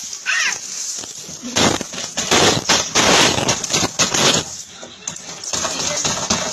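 A heap of metal coins clattering and clinking as a hand rakes and scoops through them, in dense runs of clinks with a short lull about five seconds in.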